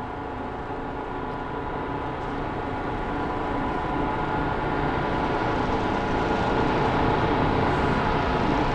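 Steady mechanical hum of air-conditioning or ventilation equipment, several steady tones over a low rumble, slowly growing louder.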